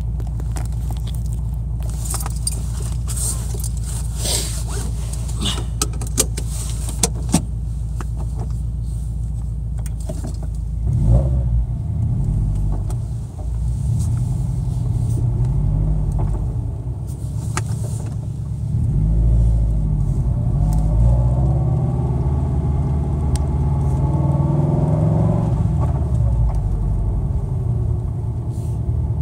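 2013 Scion FR-S flat-four with an equal-length header, catless front pipe and Invidia N1 exhaust, heard from inside the cabin. It idles steadily at about 800 rpm with a few sharp clicks, then about eleven seconds in it pulls away and revs rise and fall under light acceleration, kept below 4,000 rpm.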